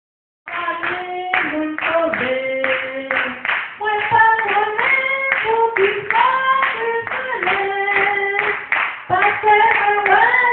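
A woman singing a Creole gospel song in full voice, with steady handclaps keeping the beat at about two to three claps a second; both start about half a second in.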